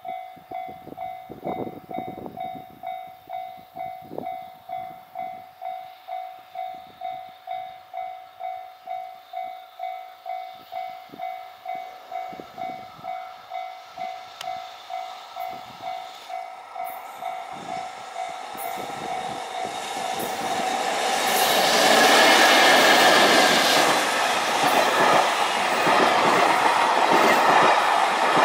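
Container freight train hauled by an EF65 electric locomotive approaching and passing. Its wheel-on-rail running noise swells from about two-thirds of the way through and stays loud to the end. Before the train arrives, a level-crossing warning bell rings steadily about twice a second.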